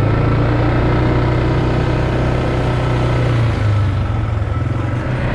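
ATV engine running steadily as the four-wheeler rides along, its note dipping briefly about three and a half seconds in.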